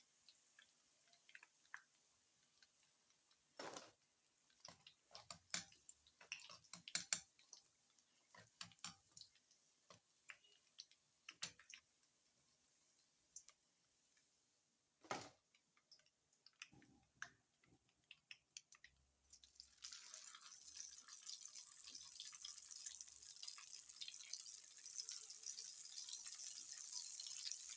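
Faint kitchen sounds: scattered light clicks and knocks, then a steady hiss that starts about two-thirds of the way through and slowly grows louder.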